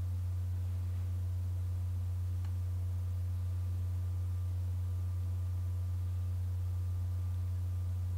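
A steady low hum: one constant deep tone with fainter, higher steady tones above it, unchanging throughout.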